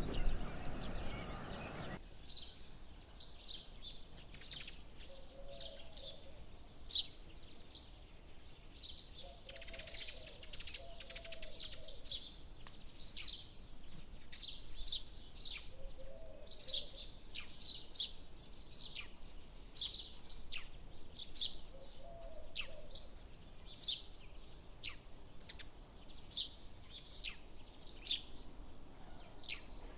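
Small birds chirping: many short, high chirps repeating through the whole stretch, with a few lower short calls now and then. It opens with about two seconds of loud rustling noise that cuts off suddenly.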